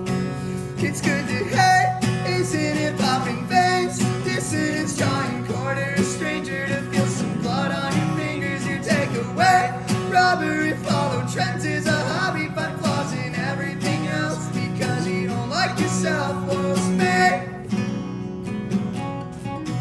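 Two acoustic guitars playing a song together, with picked and strummed notes, dropping in level near the end.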